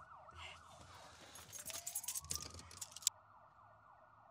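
Faint police sirens with a fast up-and-down yelp, and a slower wail rising about one and a half seconds in. Over the middle, car keys rattle at the ignition, ending in a sharp click about three seconds in.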